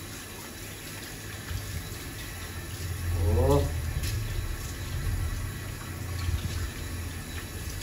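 Tap water running steadily at a salon backwash sink as a customer's hair is rinsed. A short voice sound comes about three seconds in, and a low hum joins from about then.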